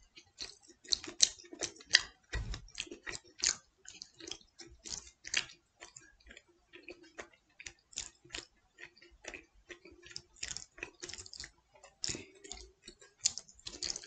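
A person chewing pizza with the mouth close to the microphone: a run of short, irregular wet mouth clicks and smacks, several a second.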